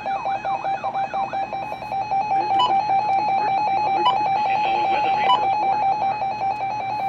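Weather alert radio receivers sounding their alarms for a Required Weekly Test: a rapid, steady electronic beeping, with a fast warbling siren-like tone over it that fades out about a second and a half in.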